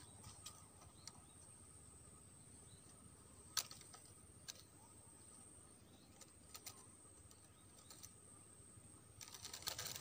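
Quiet outdoor ambience: a steady high insect drone with scattered faint sharp clicks, one louder about three and a half seconds in, then a quick flurry of crackling clicks near the end.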